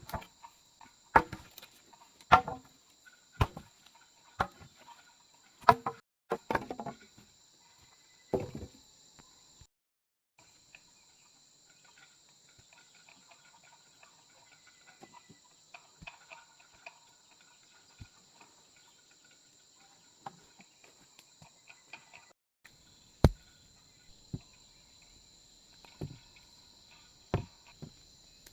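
Steady high insect chirring, like crickets, under sharp knocks of blows on wood: about one a second for the first nine seconds, then a quieter stretch with faint ticks, then three single knocks near the end.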